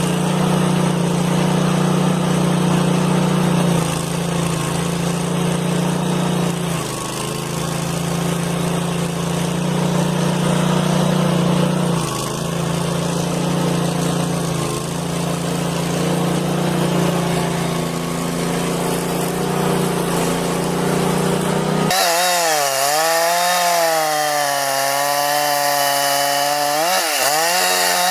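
Chainsaw running under load while cutting wood, its engine note steady with brief sags around 7, 12 and 15 s. About 22 s in, the sound switches abruptly to another saw engine whose pitch swings up and down as it cuts.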